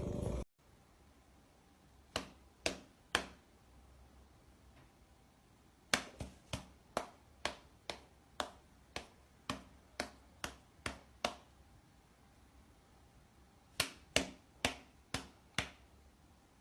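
A series of sharp clicks, each dying away quickly: three close together, then a run of about a dozen at roughly two a second, then a few more near the end, over a quiet background.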